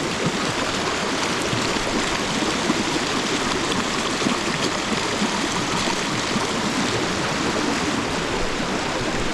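Glacial meltwater river running fast over rocks: a steady, even rush of water close by.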